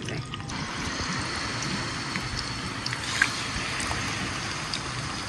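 Raw boneless chicken thigh pieces sizzling in hot oil in a karahi: a steady frying hiss with scattered small crackles, starting about half a second in.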